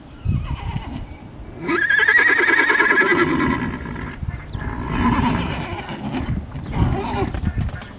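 A horse whinnying: one long, quavering whinny begins about two seconds in, followed by two shorter, weaker calls.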